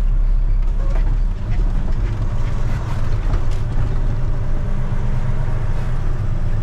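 Mack Anthem semi truck's diesel engine running at low speed, heard from inside the cab as a steady low drone while the truck creeps through a turn.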